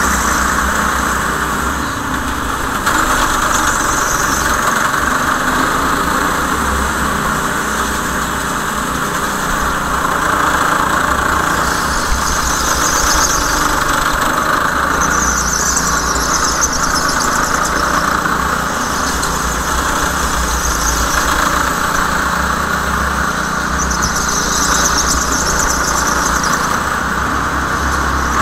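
Go-kart running steadily at speed, with high tyre squeals coming and going a few times as it slides through corners.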